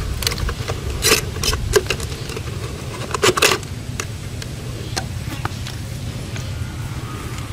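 Plastic drink-bottle fish trap being handled: a string of sharp crackles and taps from the plastic, loudest about a second in and again around three and a half seconds in, then only a few faint ticks, over a steady low rumble.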